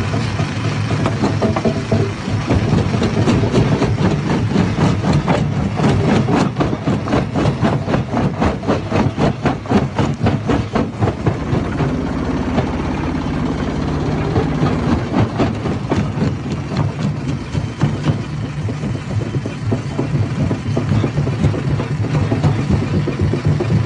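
Hammer stone crusher running under load, a steady machine drone with a rapid clatter of rocks being smashed. The clatter thins out about halfway through, leaving a steadier drone.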